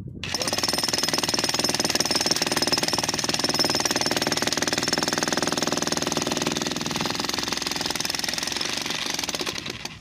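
Electric demolition breaker hammering into a reinforced-concrete (RCC) slab: a rapid, steady run of blows that starts abruptly and stops just before the end.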